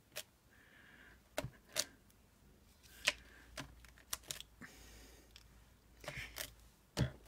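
Irregular light taps and clicks of craft tools and paper being handled on a tabletop, about ten in all, spaced unevenly.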